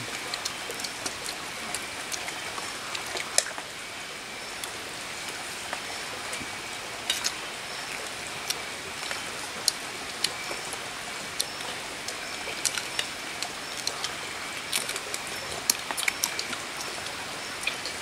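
Night forest ambience: a steady hiss like running water or light rain under a faint, steady insect trill, with scattered sharp clicks of spoons against metal pots and bowls.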